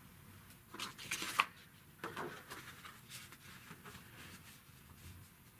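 Sheets of drawing paper rustling and crackling as a loose pencil portrait is lifted off a framed drawing, loudest about a second in, then smaller scattered rustles.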